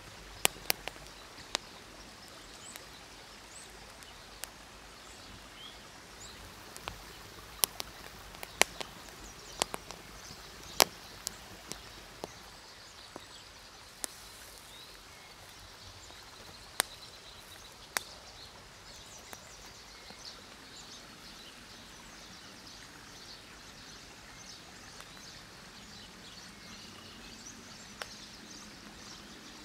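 Irregular sharp pops and crackles from a wood fire and the hot coals that beef patties are cooking on, over a steady background hiss of a nearby river. The pops come thickly at first, with single cracks spaced seconds apart later on.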